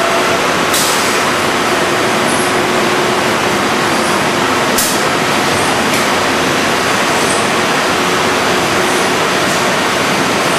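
HOMAG CNC woodworking router running: a steady, loud rush of its motors and dust extraction, with two short, sharp hisses of compressed air, one about a second in and one near the middle.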